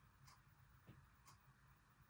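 Near silence: room tone with a faint low hum and a faint tick about once a second.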